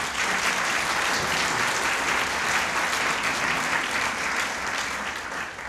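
Large seated audience applauding, a steady wash of many hands clapping that eases slightly near the end.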